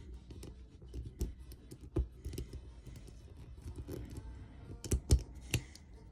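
Small, scattered clicks and taps from a Swiss Tech TSA combination cable lock being worked by hand, its dials and cable coupling clicking as it is pushed and turned. There are a few sharper clicks about two seconds in and around the five-second mark.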